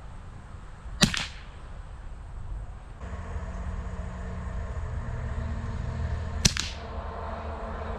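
Two shots from a Remington 597 .22 LR rifle firing CCI Quiet subsonic rounds, about five and a half seconds apart, each a short crack with a brief tail. These low-powered rounds do not cycle the rifle's action.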